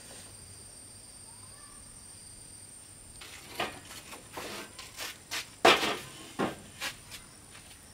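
Long wooden boards knocking and scraping against each other and a metal-frame table as they are handled. A string of uneven clatters starts about three seconds in, the loudest about halfway through, after a faint steady background with a thin high tone.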